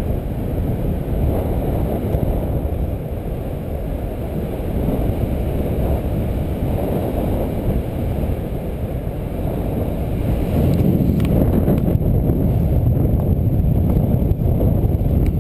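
Wind buffeting the microphone of a harness-mounted camera on a paraglider in flight: a steady low rumble that gets louder about ten seconds in.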